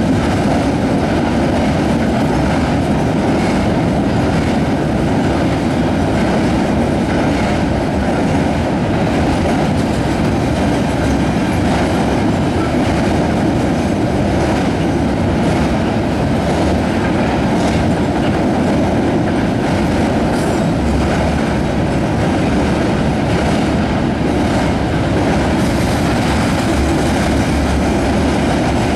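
Double-stack intermodal container cars of a Canadian National freight train rolling past across a railway bridge: a steady rumble of steel wheels on rail with intermittent clicks.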